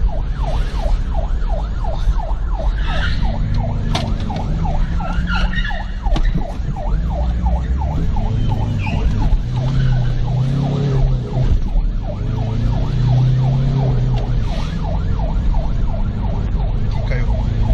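Police siren on fast yelp, about four quick pitch sweeps a second, heard from inside the pursuing car. The car's engine runs underneath and revs harder twice in the second half.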